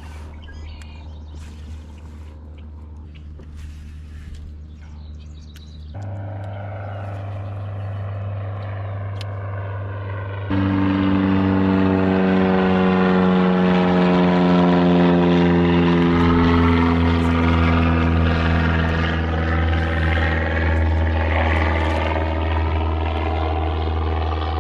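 Propeller airplane flying over: a steady engine drone that grows much louder about ten seconds in, its pitch then slowly falling as it passes.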